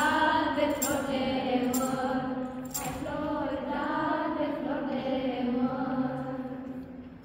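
A group of carolers singing a Romanian Christmas carol (colindă) together, with a few sharp high strikes in the first three seconds; the singing fades out near the end.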